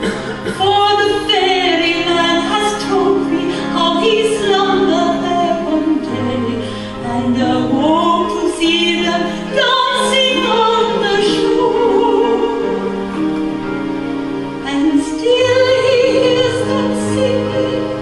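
A woman singing a song in an operatic style into a microphone, her voice bending and holding long notes over sustained accompanying tones.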